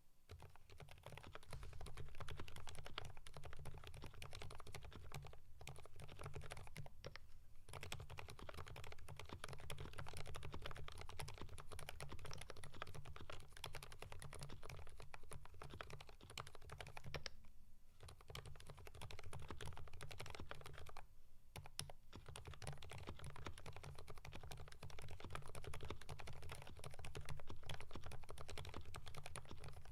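Typing on a Keychron V5 mechanical keyboard with lubed Kailh Fried Egg silent switches: a fast, continuous run of soft, dampened keystroke thocks with a deep bottom-out thud and no sharp click, broken by brief pauses.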